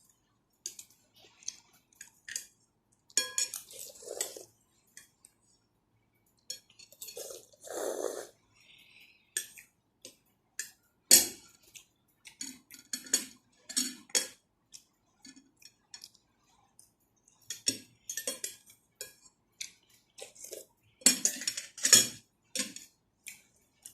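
Cutlery clinking and scraping against a bowl while eating, in irregular short clicks with a few louder knocks about 11 seconds in and again near the end.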